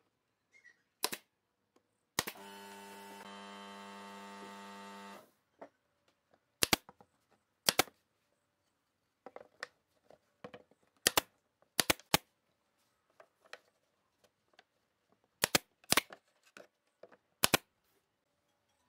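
Pneumatic nail gun firing nails into wooden boards: about ten sharp shots at irregular intervals. A steady hum runs for about three seconds near the start.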